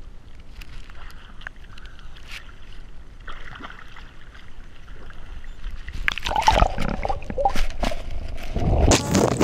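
Water lapping and splashing around a camera held at the sea surface, then a louder rush of bubbling, churning water from about six seconds in as the camera goes under.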